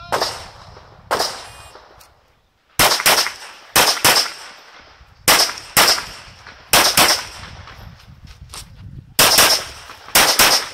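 Glock 34 9mm pistol firing about a dozen loud, sharp shots, mostly in quick pairs with a second or so between pairs.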